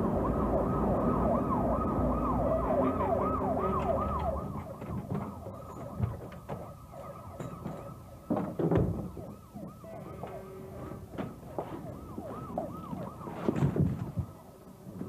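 Emergency vehicle siren in a fast rising-and-falling yelp over a low traffic rumble, loud for the first few seconds, then fainter. Knocks and thuds from a door and a bag being carried in come through about halfway and near the end.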